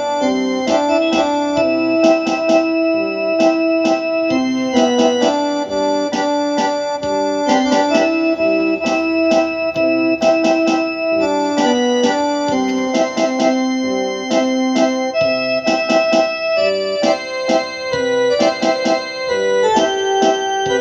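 Background instrumental music: a melody of held notes over a steady percussive beat.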